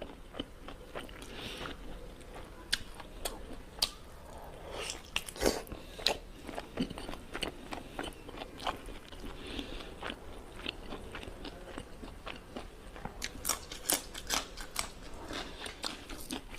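A person chewing and biting mouthfuls of pork curry, a run of irregular short clicks and crunches.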